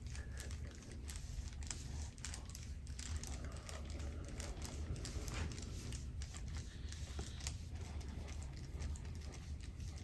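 Soft irregular clicking and skin-friction sounds as a forearm presses and works slowly into a bare back during deep tissue massage, over a steady low room hum.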